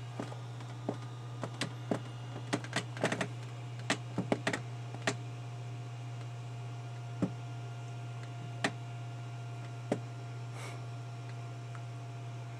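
A series of small sharp clicks and taps, a quick cluster in the first five seconds and then three spaced ones, over a steady low electrical hum.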